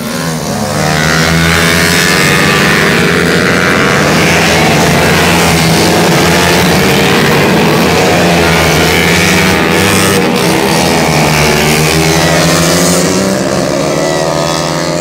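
Four-stroke racing motorcycles at full throttle, passing close through a corner. The engine pitch rises and falls as the riders shift and accelerate out of the bend, and the sound fades near the end.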